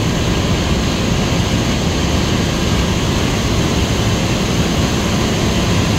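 Steady, loud rush of turbulent water in a pit, with water streaming off a clamshell grab bucket as it is hoisted clear, over a low industrial hum.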